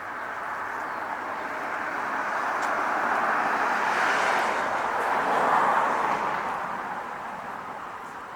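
A car passing by: its road noise swells to a peak about halfway through and then fades away.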